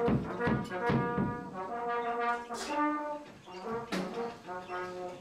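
A horn-like instrument sound playing a run of short held notes at changing pitches, after a few sharp drum hits in the first second.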